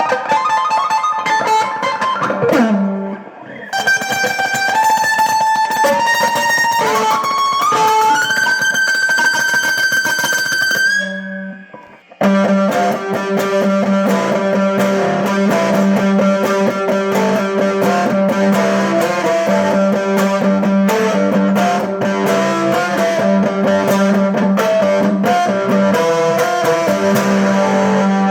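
Homemade electric mandolin played through an amp: picked notes with pitch slides up the neck, then, after a brief break, fast repeated picking over a steady low droning note.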